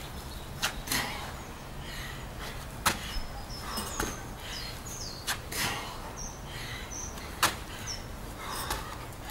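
Hands and feet hitting a dirt and gravel path during repeated burpees: sharp slaps, thuds and scuffs every second or two. A bird chirps a few times in the middle.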